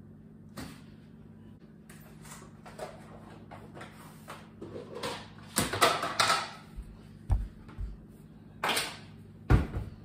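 Kitchen handling sounds: pots, lids and containers being moved and set down on the counter, a run of irregular knocks and clunks, the loudest near the middle and about a second before the end. A faint, steady low hum runs underneath.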